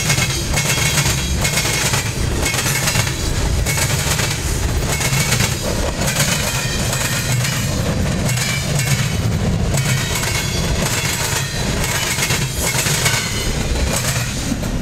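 Mixed freight cars of a passing freight train rolling by: a steady rumble of steel wheels on rail, with repeated sharp clacks as the wheels cross the diamond crossing.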